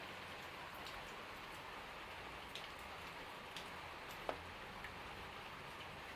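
Steady rain falling as an even continuous hiss, with a few faint clicks; the sharpest comes about four seconds in.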